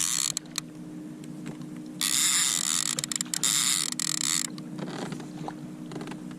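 Fishing reel being cranked and clicking, in a loud burst of about two and a half seconds in the middle, with scattered clicks before and after over a steady low hum.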